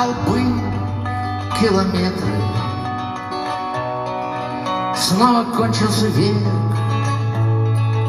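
Rock band playing an instrumental passage live: strummed acoustic guitar over held electric-guitar and keyboard notes and a steady low bass note.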